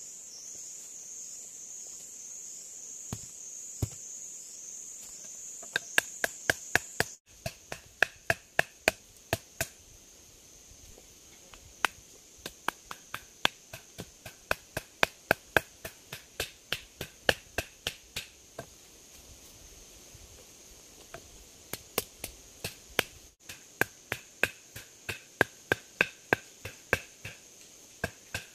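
Wooden stake being hammered into the ground with a wooden stick: sharp wooden knocks in three runs of about three blows a second, with two single knocks before the first run. Insects buzz steadily and high-pitched throughout, louder for the first several seconds.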